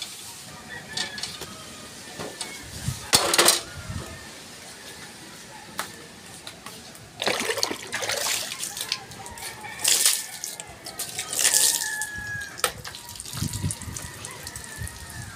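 Water splashing and sloshing in a basin in several separate bursts, as a cleaning rag is dipped and worked in it, with a few sharp knocks in between.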